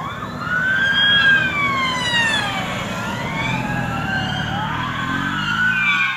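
Several police sirens wailing at once, their slow rising and falling tones crossing over one another, with vehicle engines running underneath.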